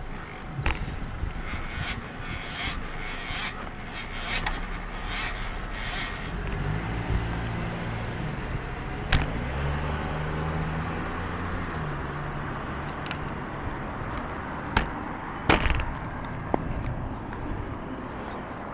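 Rubbing and scraping handling noise on the microphone over a steady rush of wind and road noise, with a cluster of scratchy rustles in the first few seconds. A low hum rises and falls in pitch around the middle, and a few sharp knocks come near the end.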